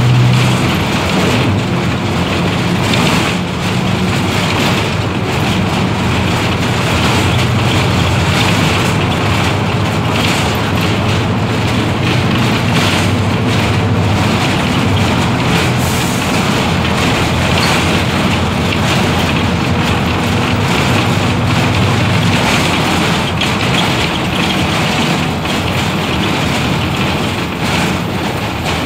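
Mercedes-Benz OF-1721L BlueTec 5 bus's four-cylinder diesel engine running under way, a steady low hum over road and body noise. About three quarters of the way through, the engine hum drops away while the road noise carries on.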